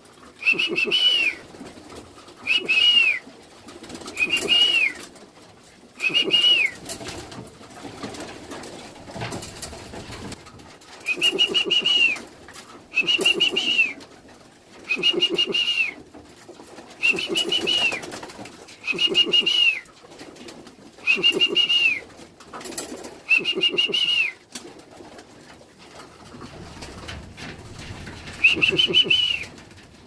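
A keeper's call-in signal to bring pigeons down into the loft. It is a short, high note that drops at its end, repeated about every two seconds.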